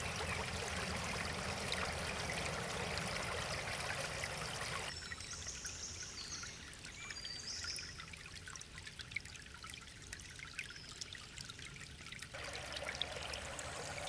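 Shallow forest brook trickling and splashing over stones. About five seconds in the water sound drops away to a quieter stretch with a few short high chirps, and the trickling returns near the end.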